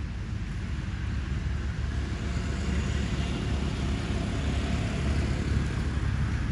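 Steady low rumble of outdoor background noise, growing slightly louder over the first few seconds.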